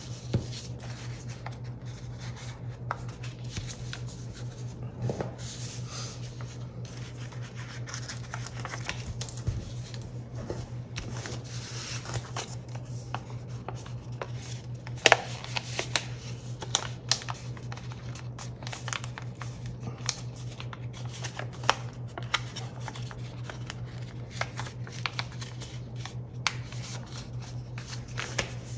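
A sheet of paper being folded and creased by hand on a tabletop: scattered crinkles, rubs and crackles, the sharpest about halfway through, over a steady low hum.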